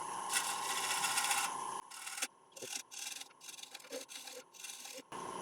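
Round-nose scraper cutting the inside curve of a spinning damson wood bowl on a lathe: a scraping hiss, first one long pass and then a series of short strokes. The lathe's steady whine is heard under the early part.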